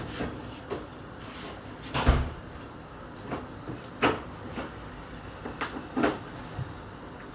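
Irregular knocks and clunks of parts and tools being handled while working on a front-loading washing machine, the loudest a heavy thud about two seconds in.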